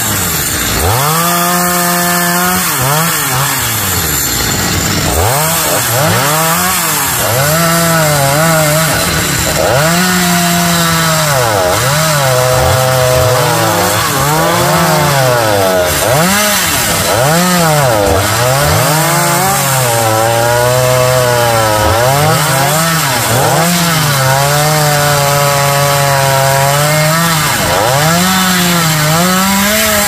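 Petrol chainsaw cutting African mahogany (xà cừ) wood. Its engine speed keeps rising and falling: it holds high for a second or two, then drops away and climbs back, over and over.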